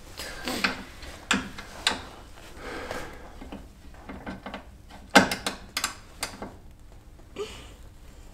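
Hand ratchet clicking in short, irregular spells as it is worked on a bolt: a few single clicks in the first two seconds, then a louder cluster of clicks about five seconds in.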